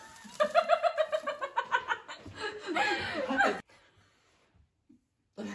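Several women laughing: a quick run of ha-ha-ha pulses, then more laughter that cuts off suddenly about three and a half seconds in.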